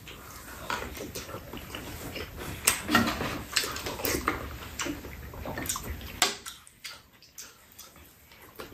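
Eating sounds: wet chewing and lip smacking, with light clicks of spoons and chopsticks on bowls, coming irregularly and thinning out near the end.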